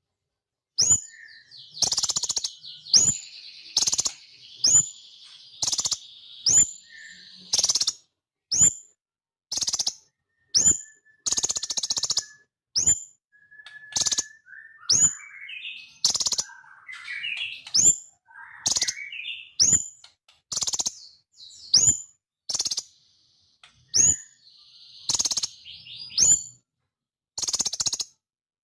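Sunbird of the kind Indonesian keepers call 'kolibri ninja' calling: sharp, high chips repeated about once a second. Buzzy trills run between the chips early on, and there is a rising twittering phrase partway through.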